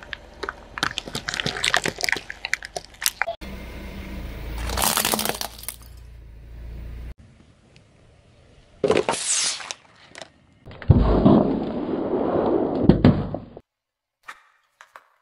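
Car tyre crushing a series of objects. For the first three seconds or so, plastic toy bottles crack and snap rapidly under it. A few sudden bursts follow, a juice carton bursting among them, then a longer spell of liquid spraying out, each stopping abruptly at an edit. The sound dies away near the end.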